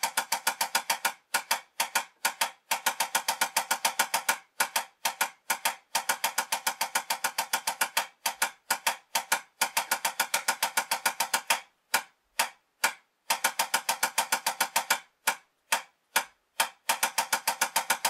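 Wooden drumsticks tapping a drum practice pad in an even triplet pulse. Stretches of unbroken triplets alternate with stretches where strokes drop out in changing patterns, the rhythm variations of a triplet timing exercise.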